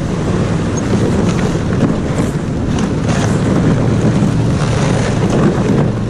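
Motodog, a small tracked snow tractor, with its engine running steadily as it tows a sled through deep snow, with a few short knocks from the track and sled.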